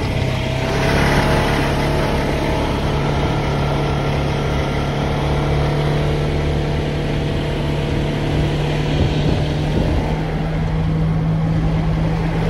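A vehicle engine running steadily with a constant low hum, under a broad rushing noise.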